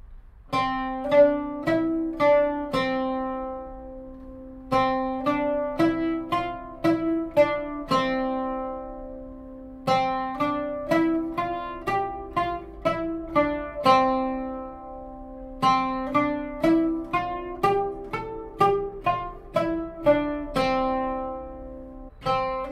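Oud played solo: single plucked notes in short phrases up and back down the C major scale (maqam Ajam on C). Each phrase is longer than the one before, and each ends on a note left to ring, with a brief pause before the next.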